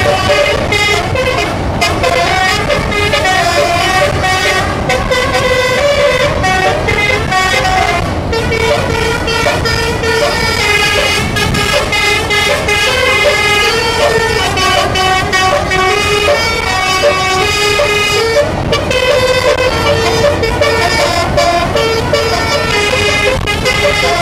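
Bus basuri telolet horn, a multi-tone musical air horn, playing a long unbroken run of melodic notes that step up and down in pitch.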